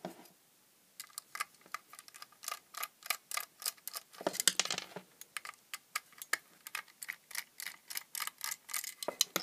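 Small screwdriver turning screws out of a black plastic mains connection unit: light, irregular clicks and ticks, several a second, starting about a second in, with a busier patch of clicks near the middle.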